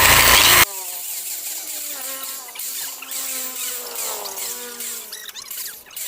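Loud rushing noise from a workshop tool that cuts off abruptly under a second in, followed by faint wavering tones.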